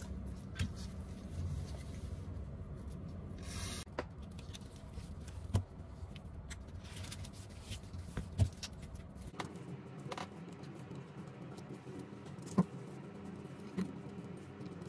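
Scattered small clicks, taps and rubbing as gloved hands handle iPhone 11 Pro Max housing and internal parts, over a low steady hum.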